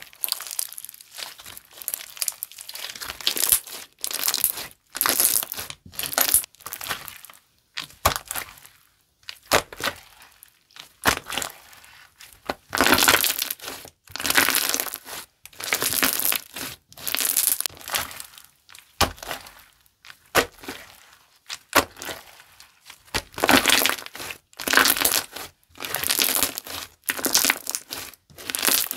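Yom Slime's Moon Crystal Jelly slime being squeezed and worked by hand, in a long series of short bursts of crackly noise with brief quiet gaps between them.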